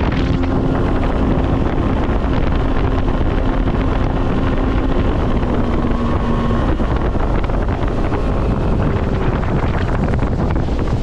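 Motorboat running across the water with heavy wind rushing over the microphone. A low steady engine tone under the rush dips slightly and fades out about seven seconds in.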